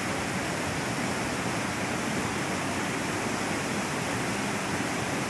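Mountain stream rushing and splashing over boulders in small cascades, a loud steady rush of water.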